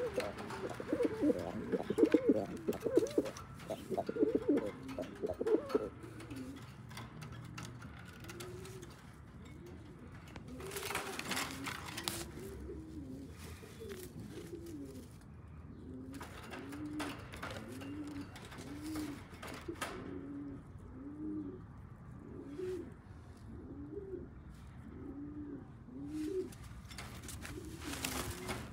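Donek pigeons cooing: a louder, quicker run of coos in the first few seconds, then a steady series of short coos that rise and fall, about one a second, typical of courtship cooing as the birds pair up. A few brief rustles or knocks break in now and then.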